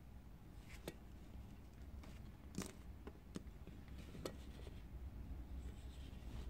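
Faint clicks and knocks from a black plastic inkjet print head assembly being handled and turned over against a small wooden block, four or five separate sharp clicks over a low steady hum.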